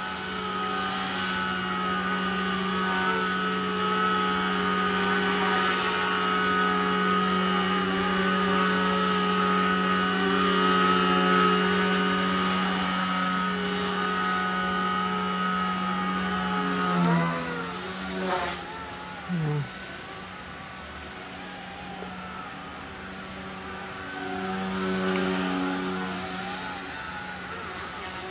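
Blade mCPX BL micro collective-pitch RC helicopter in flight: the steady whine of its brushless motor and spinning rotors, its pitch wavering as it is flown. About seventeen seconds in the pitch swoops down and back and the sound drops quieter, then swells again about twenty-five seconds in.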